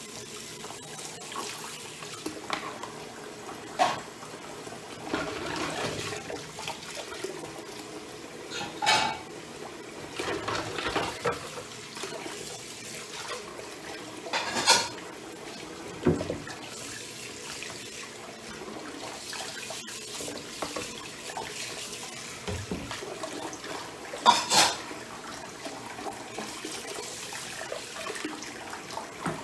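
Water running in a kitchen sink, a steady wash, with dishes clattering about four times.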